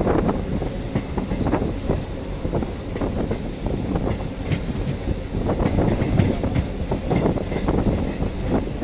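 Passenger train running along the track: its wheels clatter and knock irregularly over the rails, above a steady running noise.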